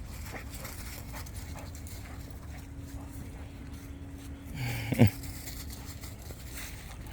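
Pit bull dog panting, with one short, loud sound about five seconds in that falls in pitch.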